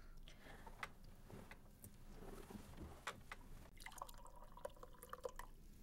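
Faint pouring of liquid from a jug into a cup, in the last couple of seconds, after a few scattered faint clicks.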